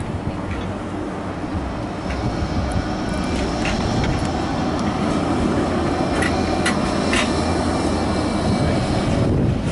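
Bombardier Flexity 2 tram running past close by, its rumble building as it approaches. A faint high steady whine sits over it, with a few sharp clicks in the second half.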